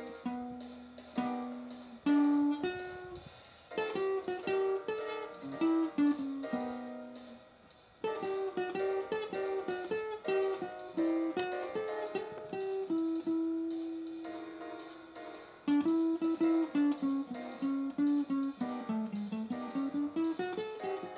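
Background music: a guitar plucking a melody note by note.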